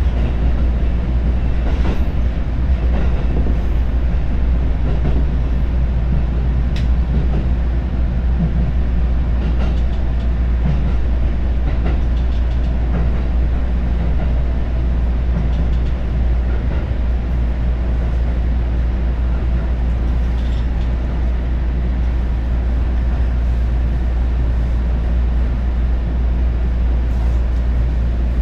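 Steady low rumble of a JR Joban Line commuter train heard from inside the passenger car as it runs into a station platform, with a few light clicks.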